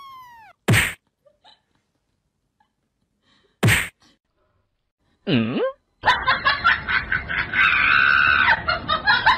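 Two sharp slap-type whacks, one about a second in and another near 4 s, loud and sudden like added comedy slap effects; they are timed to the cat's paw swipes. A short falling tone comes at the start and a swooping tone around 5 s. A loud, dense jumble of sound fills the last three seconds.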